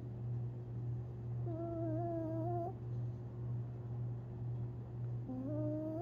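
Long-haired Chihuahua whimpering in its sleep while dreaming: a drawn-out, slightly wavering whine about a second and a half in, and a second whine rising in pitch near the end, over a steady low hum.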